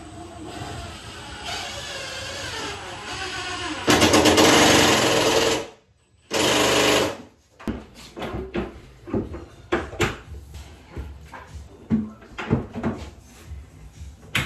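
A handheld power tool runs in two loud bursts, about four seconds in and again around six seconds, while cabinets are being installed. Short knocks and clatters from handling follow.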